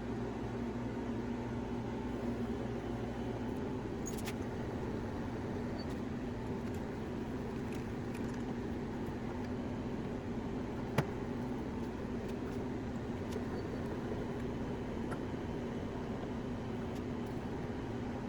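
Steady low mechanical hum with a faint tone, broken by a few light ticks and one sharp click about eleven seconds in.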